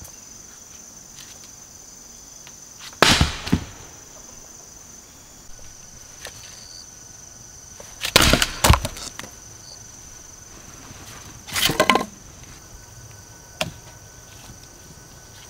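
Dry wood cracking and snapping in three short bouts of several sharp cracks each, about three, eight and twelve seconds in.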